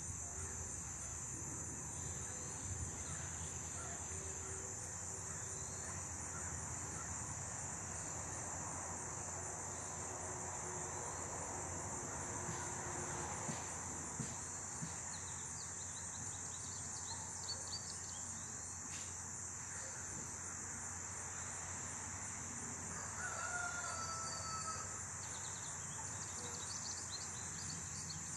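Turkeys calling off and on, with the clearest run of calls about two-thirds of the way in, over a steady high-pitched chirring of insects.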